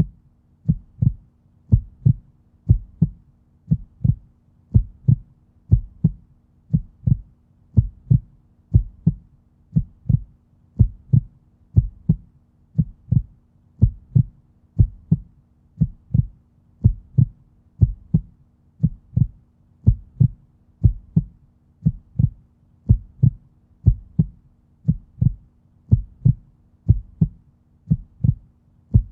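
Human heartbeat: a steady double thump (lub-dub) about once a second, low and muffled, with a faint steady hum underneath.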